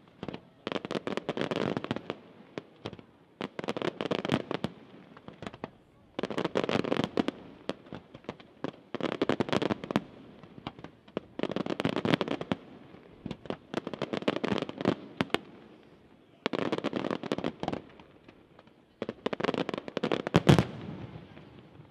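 Professional aerial fireworks display: volley after volley of shells and comets firing and bursting, each a one-to-two-second cluster of rapid sharp cracks and pops, coming every couple of seconds. The loudest, deepest bang comes near the end.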